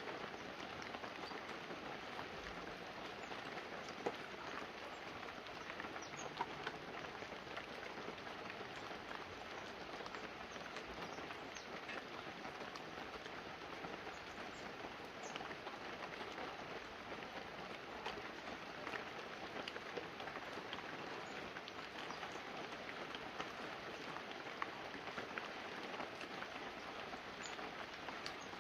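Light, steady rain pattering on banana leaves and a roof, with scattered individual drips standing out, a few louder drops around four and six seconds in.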